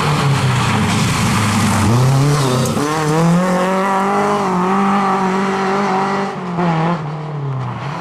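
Rally car engine under hard acceleration: the revs dip and climb in the first couple of seconds, hold high and steady for a few seconds, then fall away as the driver lifts off near the end.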